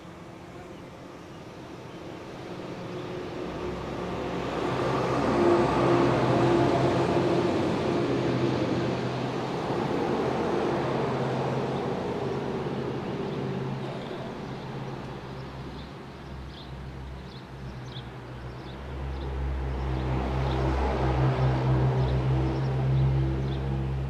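Sentry 14V outdoor warning siren sounding its steady alert tone. The tone holds one pitch but swells loud about five seconds in, fades, and swells again near the end. Faint bird chirps come in during the second half.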